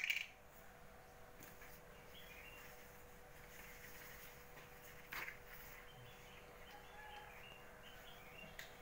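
Quiet room with a faint steady hum and faint, high bird chirps from about four seconds in; a single click about five seconds in.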